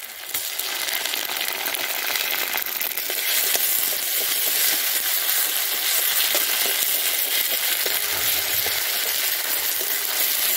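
Sliced onions with chilli and cumin paste sizzling in hot oil in a metal karai, with a steady hiss. A metal spatula stirs and scrapes through it, ticking and clinking against the pan.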